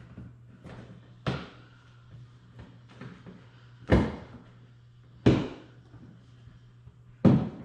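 Four sharp knocks at uneven intervals as push-in rivets are pressed home to fasten a rear diffuser under a car's bumper.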